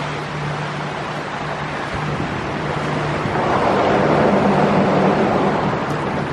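A motorboat's engine running steadily under way, with a rush of water and wind against the moving boat that grows louder a few seconds in.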